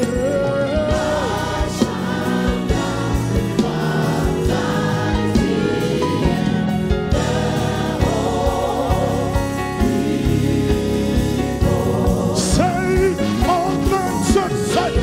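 Gospel choir singing an old Pentecostal hymn, a lead singer on microphone over the voices, with a steady beat underneath.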